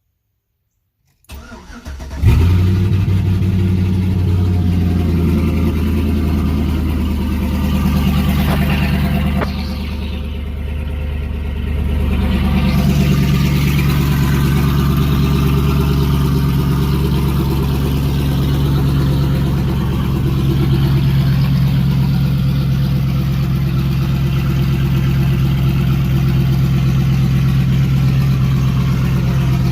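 Old pickup truck's big-cam V8 idling with a choppy, lumpy beat, coming in suddenly after a second of silence and running steadily, its tone shifting slightly partway through.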